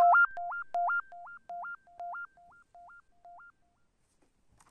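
Short synthesized intro jingle: a two-note electronic figure leaping up an octave, repeated a little more than twice a second and fading away like an echo over about three and a half seconds. A faint click near the end.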